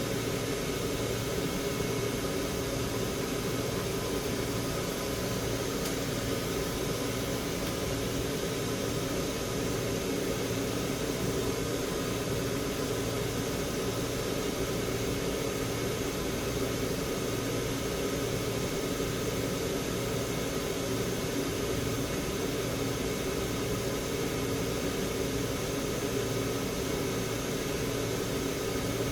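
Steady blowing of fan-driven air with a constant low hum and no breaks, the running noise of the electronics rework bench's air equipment.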